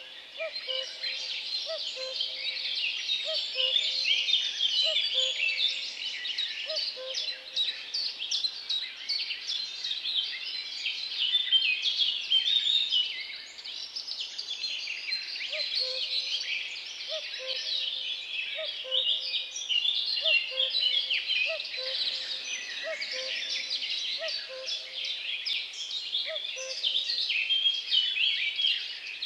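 Dense chorus of many songbirds chirping and twittering. Beneath it, a lower short call repeats about once a second, dropping out for a few seconds in the middle.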